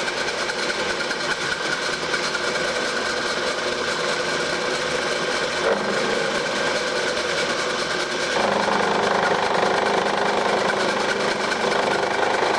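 Metalworking machine tool running steadily as it cuts the top edge off a workpiece. About eight seconds in, the cut gets louder and heavier.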